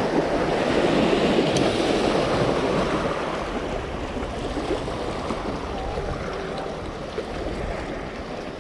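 Small waves washing and splashing against shoreline rocks, louder for the first few seconds and then easing. A single sharp click about one and a half seconds in.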